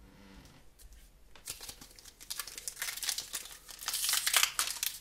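Crinkly plastic wrapper being handled, starting about a second and a half in and getting louder toward the end.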